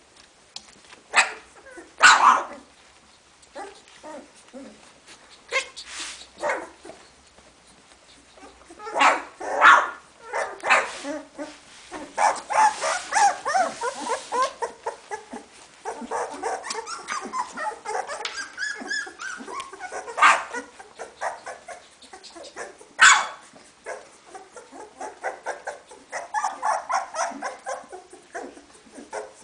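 Two-week-old puppies squealing and whimpering in many short, high calls as they root for their mother's teats to nurse, with a few sharp knocks in between.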